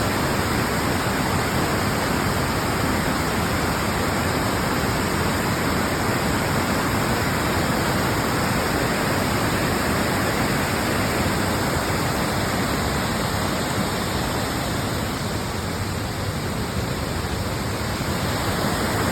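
Rain-swollen stream rushing in flood: a steady, loud wash of water.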